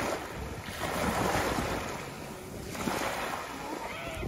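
Small waves breaking and washing up a sandy beach, swelling twice, with wind on the microphone.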